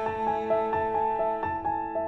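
Soft instrumental background music: gentle piano-led new-age music with evenly paced notes.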